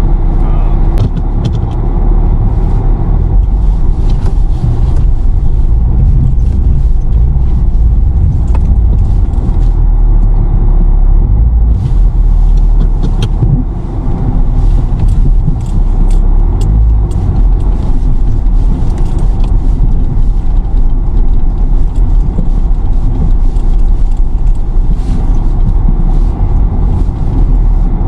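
Car engine running hard with a steady low rumble as the two-wheel-drive vehicle works its way up a muddy hill, scattered sharp clicks and ticks over it throughout.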